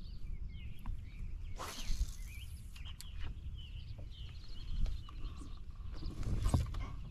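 Small birds chirping and singing throughout, over a steady low rumble of wind on the microphone. Two brief louder swishes, about two seconds in and near the end.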